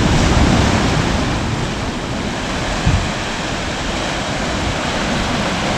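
Sea waves washing against the rocks of a breakwater, mixed with wind buffeting the microphone; a short thump about three seconds in.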